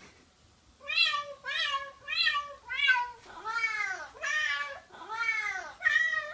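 Cat meows, eight in a row: four short, evenly spaced meows, then four longer, drawn-out meows that rise and fall in pitch.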